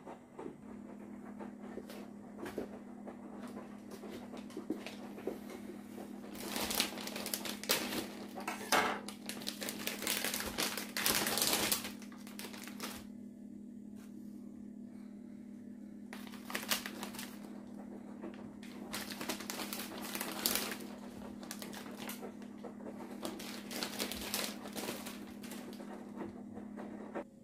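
A steady low appliance hum under irregular clicking, rustling and clattering of household handling, busiest about six to twelve seconds in and again around seventeen to twenty-one seconds.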